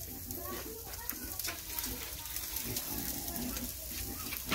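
Chunks of meat sizzling and crackling on a wire grill over glowing charcoal: a steady hiss with scattered small pops.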